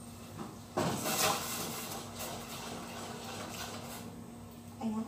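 A pot and utensil clatter at the stove about a second in, followed by fainter scraping and handling sounds over a steady low hum.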